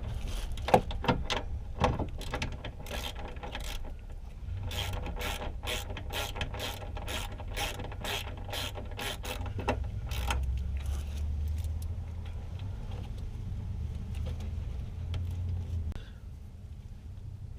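Hand ratchet wrench clicking in quick, even strokes, about three clicks a second for several seconds, as a suspension bolt is turned.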